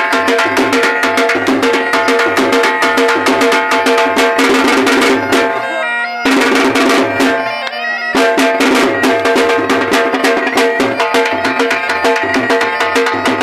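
Dhol drums beating a fast dance rhythm under a been, a gourd pipe that plays a melody over a steady drone. Roughly two seconds before the middle the drums stop and the been plays alone, then the drums come back in.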